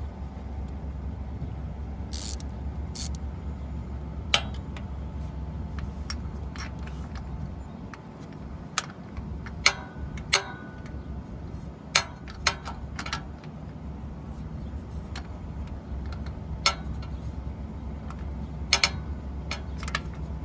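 Hand tools clinking against metal while the starter's mounting bolts are being worked loose under a car: scattered sharp metallic clicks and taps at irregular intervals, over a steady low rumble.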